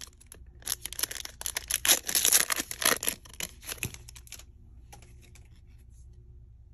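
A trading-card pack wrapper being torn open and crinkled: a dense crackling for about four seconds, dying down to faint scattered rustles as the cards come out.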